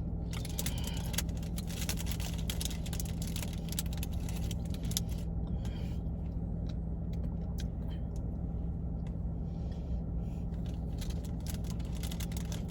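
Close-up chewing of a chocolate chip cookie, a dense run of small crackly clicks coming in clusters, over a steady low hum.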